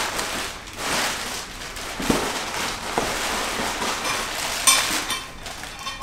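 Plastic bubble-wrap packaging crinkling and rustling as it is pulled out of a cardboard box, with a few light knocks.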